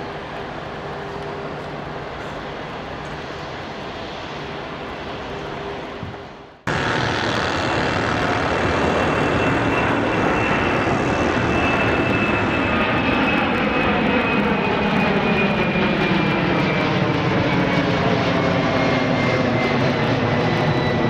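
Airbus A340-600's four Rolls-Royce Trent 500 jet engines. For the first six seconds they run steadily at low thrust with a low hum as the airliner taxis. Then, after an abrupt cut, they run much louder at high thrust for takeoff, with a whine that slowly falls in pitch.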